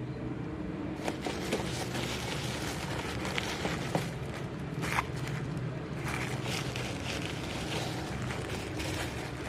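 Handling noise from unboxing a toy: scattered light clicks and rustles, the sharpest about four and five seconds in, over a steady low hum.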